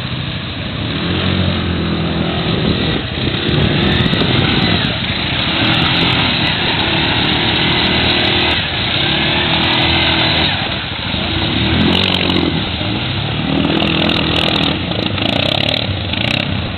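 Suzuki King Quad ATV's single-cylinder engine revving hard, its pitch rising and falling over and over as it ploughs through river water, with water rushing and splashing around the tyres.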